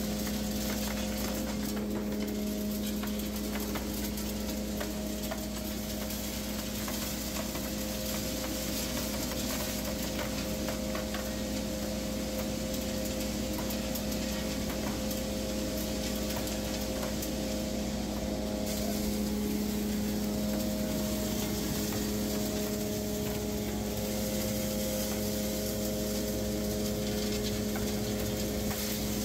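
Small ore-processing mill running steadily, feeding crushed ore along a conveyor onto a gold shaker table: a constant motor hum with a few higher steady tones under an even, gritty hiss of ore and wash water.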